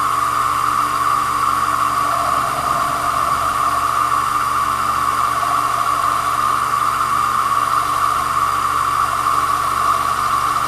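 Small pool-cue lathe running steadily, a whining hiss with no change in speed, as it spins a cue shaft while a carbide blade trims a new leather tip.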